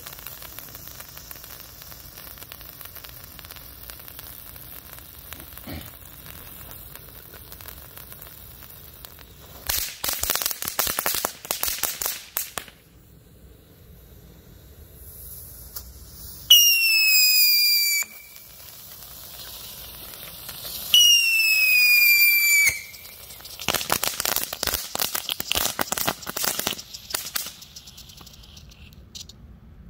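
Skull Fountain firework from Showtime Fireworks burning. It hisses steadily for about ten seconds, then gives a burst of dense crackling. After a short lull come two loud whistles, each under two seconds and each sliding slightly down in pitch, then more crackling near the end.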